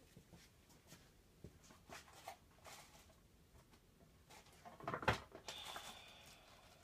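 Faint, scattered clicks and knocks of small tools and objects being moved around on a work table while rummaging for something, with a louder knock about five seconds in.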